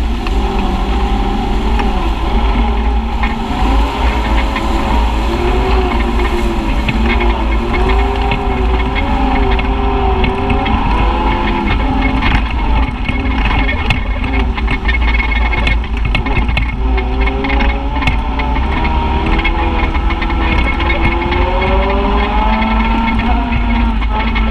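A side-by-side UTV's engine runs steadily over a rough dirt trail, its pitch rising and falling as the throttle changes. Scattered knocks and rattles come through from the bumpy ground.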